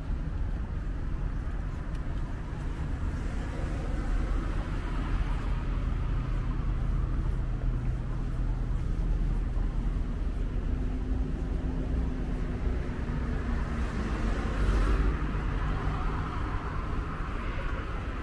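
Strong wind rumbling on the microphone over street traffic, with a vehicle's engine hum passing through the middle.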